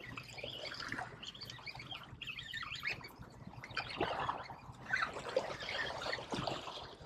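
Small sea waves lapping and splashing against the stone blocks of a jetty, in irregular surges.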